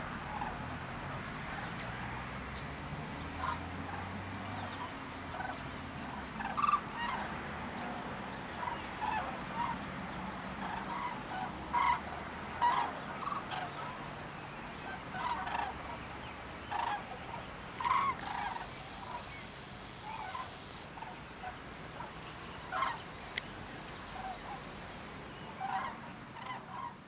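A migrating flock of common cranes calling in flight, with many short calls coming at irregular intervals and overlapping, some nearer and louder than others.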